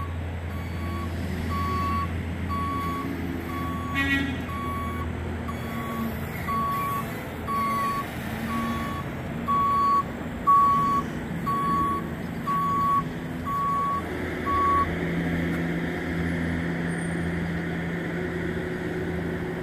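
Reversing alarm of a backing vehicle beeping about once a second over its running engine. The beeps stop about 15 seconds in and the engine note steps up.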